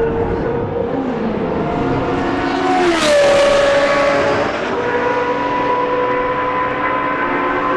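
Historic Formula 1 race cars running at speed past the track, high-revving engines with a clear multi-tone note; one car goes by about three seconds in, its pitch dropping as it passes, and engine sound carries on steadily after.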